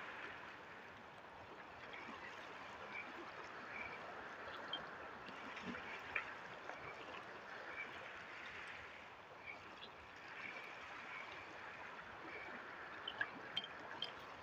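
Small sea waves lapping and splashing: a faint steady wash of water, with a few light ticks scattered through it.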